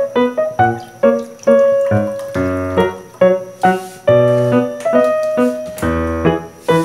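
Background piano music: a run of struck notes, each fading away, over lower bass notes.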